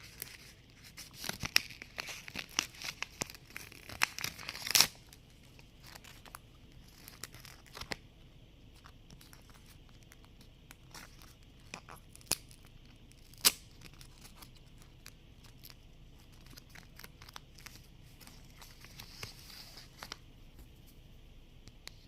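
Blind-bag packaging being handled, crinkled and torn open: a dense run of crackling rustles and tears for the first five seconds, then sparser rustling with a few sharp clicks.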